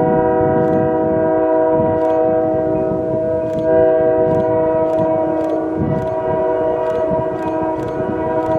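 EMD GP40 locomotive's multi-chime air horn sounding one long continuous blast, over the low rumble of the moving train. Faint clicks come about twice a second.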